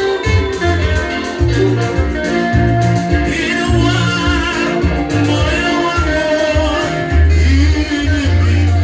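Upbeat praise-and-worship band music with a prominent bass line and steady beat, played with no one speaking over it.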